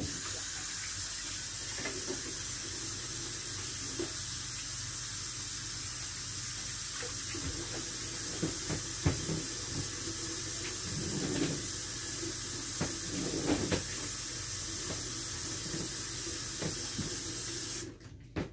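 Kitchen sink tap running steadily while hands are washed under it, with a few faint knocks. The water is turned on at the start and shuts off abruptly near the end.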